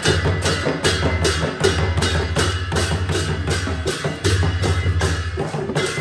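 Newar dhimay drums, large double-headed barrel drums, beaten in a steady processional rhythm while pairs of brass cymbals clash about three to four times a second.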